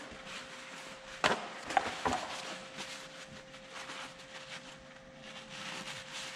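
Paper towel crinkling and rustling as a hydraulic steering-cylinder part is wiped clean by hand, with three sharp knocks on the workbench about a second in. A faint steady hum runs underneath.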